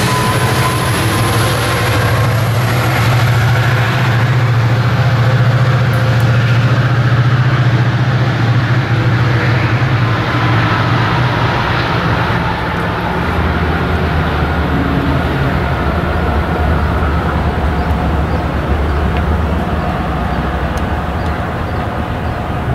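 A Metrolink commuter train's MP36PH-3C diesel locomotive goes by close, its engine a steady low drone over rolling wheels and rail noise. About twelve seconds in, as the train draws away, the drone gives way to a deeper, quieter one.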